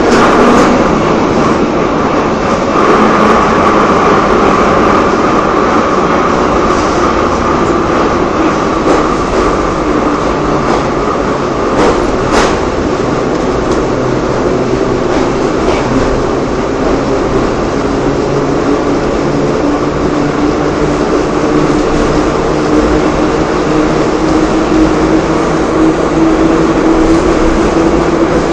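Metro train running between stations, heard from inside the carriage: a steady loud rumble with a motor whine that slowly shifts in pitch, and a sharp click about twelve seconds in.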